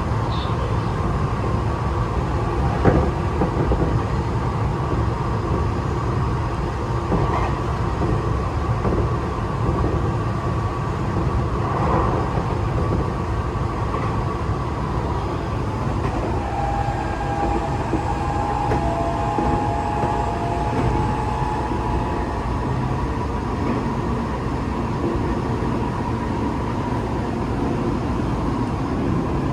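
Tokyo Metro 8000-series train (set 8104F) running at speed between stations, heard from inside the car: a steady rumble of wheels on rail and running gear. There is a single knock about three seconds in, and a faint steady high tone for a few seconds past the middle.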